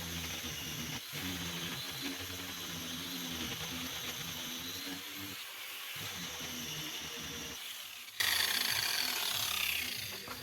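Angle grinder running with a steady whine, then a sudden louder stretch of grinding about eight seconds in, its pitch dropping as the disc takes the load.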